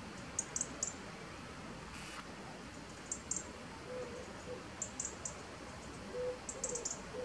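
Faint, high-pitched bird chirps in quick clusters of two to four, coming every second or two, with a few faint low coos partway through.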